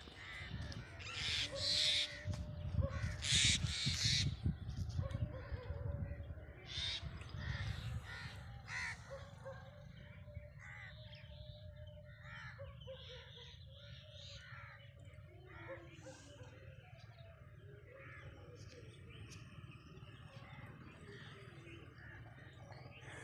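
Crows cawing: a few loud harsh caws in the first four seconds, then fainter calls, with small birds chirping quietly through the rest.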